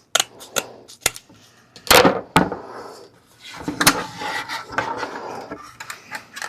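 Workbench handling noises: a scatter of sharp clicks and knocks as craft pieces are handled and fitted, loudest about two seconds in and again near four seconds, with a stretch of scraping and rustling in between.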